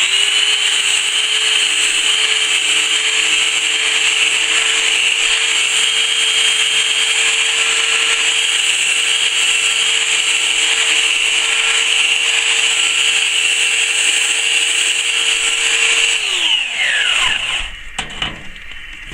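Black and Decker KA86 belt sander switched on and running steadily with a coarse 40-grit belt on an old scaffold board. About sixteen seconds in it is switched off and its whine falls away as the motor winds down.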